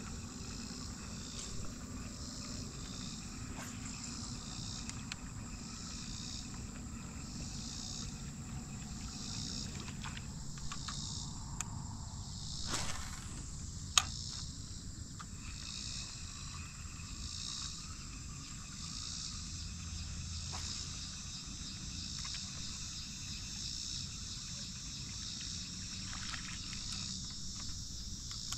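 A steady, high-pitched insect chorus that pulses in an even rhythm. About 13 seconds in there is a brief whoosh, followed by one sharp click.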